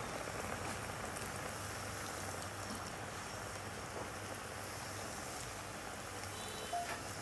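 Coca-Cola poured from a plastic bottle in a steady stream onto a whole chicken and cabbage leaves in an aluminium pot, splashing evenly.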